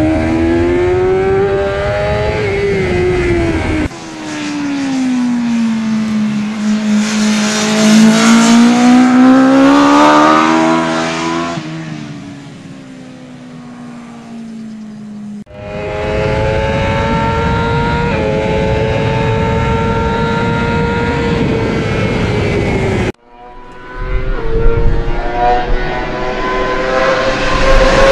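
BMW S1000RR's inline-four engine running at high revs on a racetrack, in several clips cut together. The pitch dips and rises with throttle and gear changes, one stretch is quieter and farther off, and the sound breaks off abruptly at each cut.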